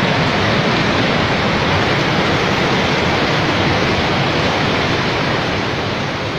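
Large Mekong River waterfall: a loud, steady rush of falling water that begins to fade near the end.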